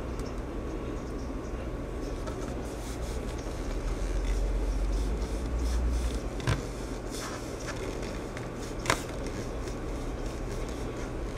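Steady low background hum with faint handling scrapes and two soft knocks, about six and a half and nine seconds in, as hands work Play-Doh on a tabletop.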